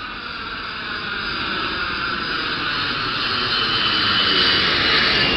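Model jet aircraft's turbine engine running with a high whine over a rushing noise, growing steadily louder.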